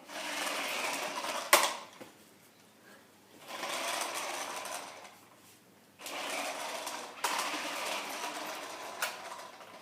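Toy remote-control car's small electric motor whirring in spurts as it drives, stopping and starting three times, with a sharp knock about one and a half seconds in.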